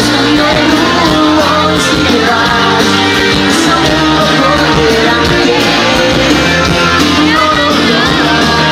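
Live rock band playing loudly, with electric guitars, drums and a sung vocal line.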